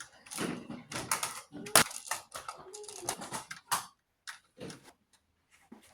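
Children playing with plastic push and ride-on toys: a busy run of clatters and knocks mixed with brief children's voices, thinning out to a few faint clicks after about four seconds.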